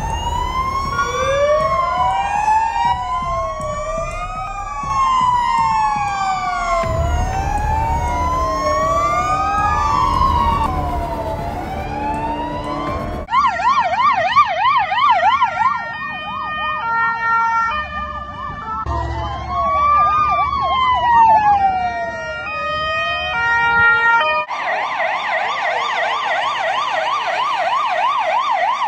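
Fire-truck electronic sirens in a series of abrupt cuts: two overlapping slow wails, each rising and falling over about three seconds, then a fast yelp over stepped tones, another slow wail, and a fast yelp near the end. A low engine rumble sits beneath the wail sections.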